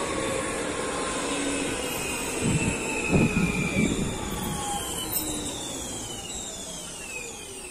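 An electric train running through the station, with several whining tones falling steadily in pitch. A few low knocks come about halfway through, and the noise fades gently toward the end.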